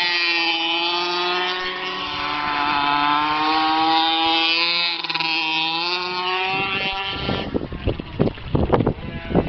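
Blata B1 pocket bike's small two-stroke engine revving up and down as the minibike rides around, its pitch rising and falling several times. About seven seconds in the engine fades out and a run of irregular knocks and thumps takes over.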